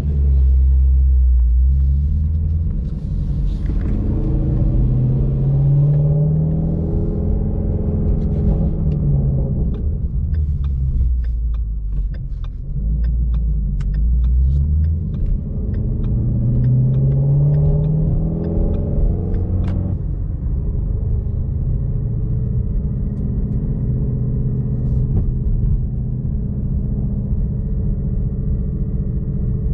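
Car engine heard from inside the cabin while driving: a deep, steady rumble that rises in pitch twice as the car accelerates, then settles into an even low drone.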